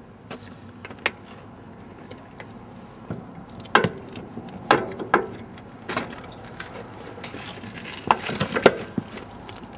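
Homemade steel centre stand on a Honda Transalp XL600 being swung down and the bike set onto it: a string of sharp knocks and clanks, about four spread over the middle and a quick cluster of several near the end.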